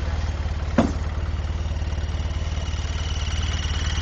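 Vehicle engine idling with a steady low throb. A single sharp knock comes just under a second in, and a faint wavering high tone rises behind the idle in the second half.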